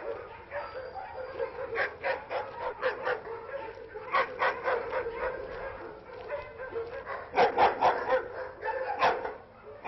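Dogs barking in short repeated bursts, the loudest volleys coming in the second half.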